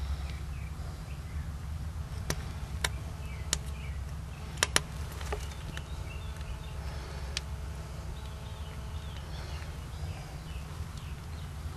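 A few sharp clicks and taps from hand tools working epoxy around a steel eye bolt and against the mixing board. The loudest pair comes about halfway through, over a steady low hum. Faint bird chirps sound in the background.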